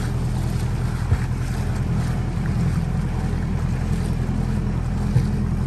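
A vehicle's engine running steadily at low speed as it drives through shallow floodwater, with water washing around it. There is a light knock about a second in and another near the end.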